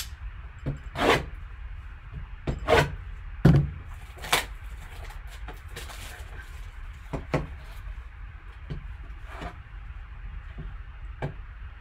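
A sealed cardboard box being handled on a table: scattered knocks and scuffs as it is picked up, tilted and set back down, the loudest a bit over three seconds in.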